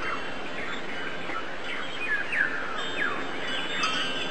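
Birds chirping: many short, quick falling chirps, several a second, over a steady hiss.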